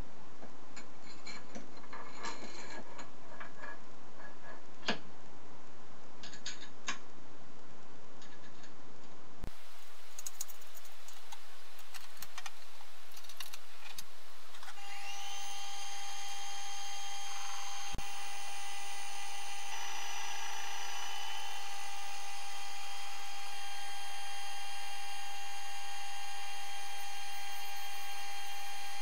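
Optimum mini lathe motor and spindle drive spinning up about halfway and then running steadily with a multi-tone whine. Before that come a few sharp metal clicks and taps of parts being handled at the spindle.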